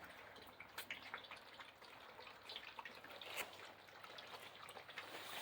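Central Asian shepherd puppies eating kibble softened in hot water with cottage cheese: faint, wet lapping and chewing clicks, scattered and irregular.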